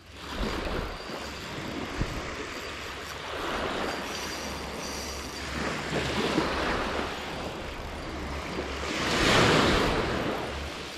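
Small sea waves breaking and washing up the sand at the shoreline, in several swells that rise and fall, the loudest about nine seconds in.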